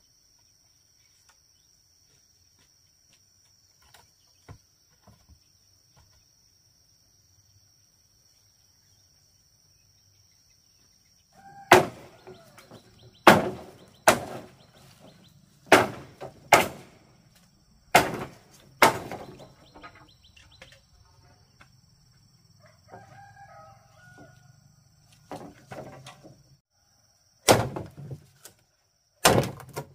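Sharp knocks of a tool striking bamboo, about nine over the second half, often in pairs about a second apart, after a long quiet stretch with a steady high insect whine. A chicken calls between the strikes.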